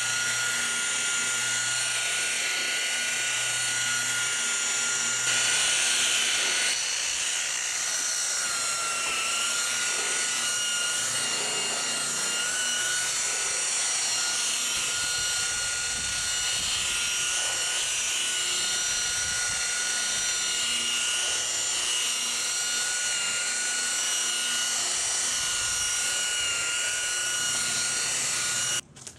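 Electric rotary polisher running with a steady high whine, its wool pad buffing spray-paint overspray off a car's painted trunk lid. It is briefly louder about five seconds in and cuts off abruptly just before the end.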